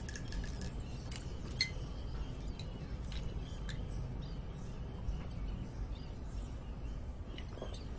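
Light clicks and glassy clinks of a pill bottle being opened and a glass water bottle being handled: a handful of short, sharp ticks over a faint steady background.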